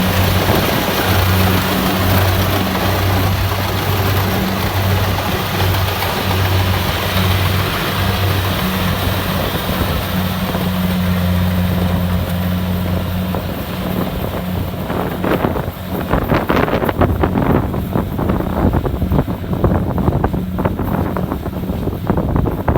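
Kubota DC-70 Plus combine harvester running steadily with a pulsing hum. From about two-thirds of the way in, wind buffets the microphone and crackles over the machine.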